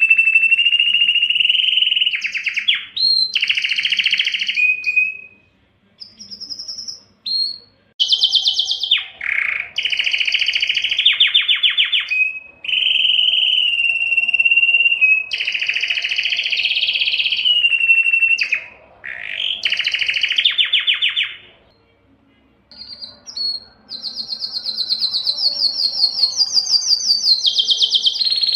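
Male domestic canary singing a long song of rapid trills and held whistled notes, broken by two short pauses, one about a fifth of the way in and one about three quarters through.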